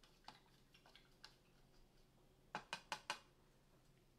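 Light hard taps against near silence: a couple of faint clicks early on, then four quick sharp taps in half a second about two and a half seconds in.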